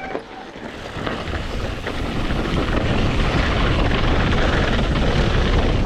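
Wind rushing over the helmet camera's microphone as a mountain bike picks up speed downhill. The noise builds over the first two seconds, then holds as a steady loud rush.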